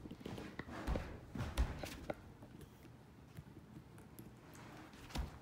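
Utility knife trimming carpet padding along a tack strip: quiet cutting and handling sounds with scattered light clicks and a few soft knocks.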